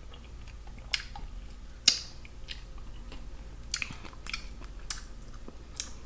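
Shellfish shells being cracked and picked apart by hand, with chewing: a string of sharp, irregular crackles and clicks, the loudest about two seconds in.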